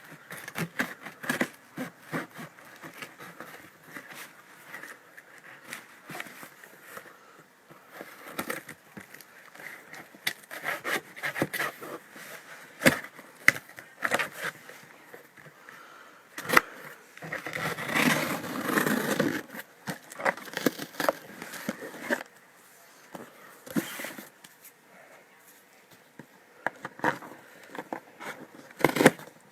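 A cardboard shipping box being opened by hand: scraping and scratching at the tape and flaps, with sharp clicks and knocks, and a louder stretch of rustling and crinkling about eighteen seconds in.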